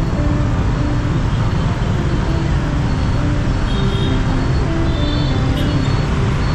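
Dense motorbike traffic heard from a rider's helmet: a steady rumble of many scooter engines and road noise.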